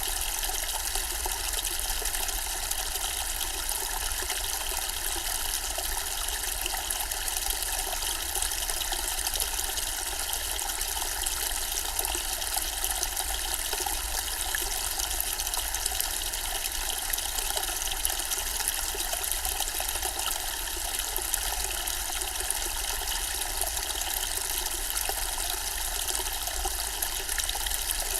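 Zen-style water fountain with water running and splashing steadily and evenly.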